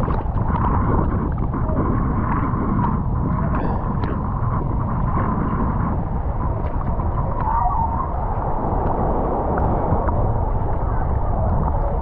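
Seawater sloshing and gurgling around a camera held at the waterline, with a steady low wind rumble on the microphone.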